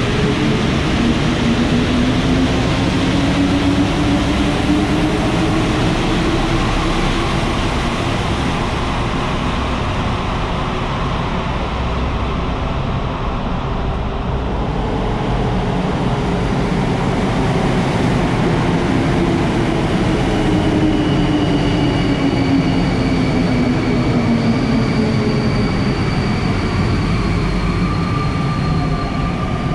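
Santiago Metro Line 1 rubber-tyred train running, its motor whine rising in pitch as it picks up speed, holding, then falling as it slows. A few faint steady high tones come in during the slowing.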